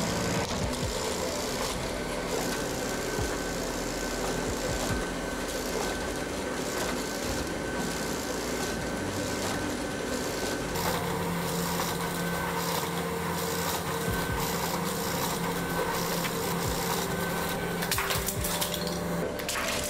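Treadmill motor and belt running under a motorised LEGO Technic Porsche 911 RSR model, its motors and plastic gears whirring steadily. Near the end comes a clatter of plastic as the car is thrown off the treadmill and lands on the tile floor.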